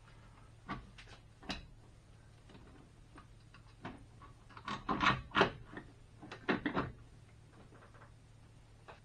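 Scattered knocks and clunks of a Nissan R35 GTR brake booster being handled and shuffled into place against a car's firewall. The loudest knocks come in a quick cluster about five seconds in, with another run just before seven seconds.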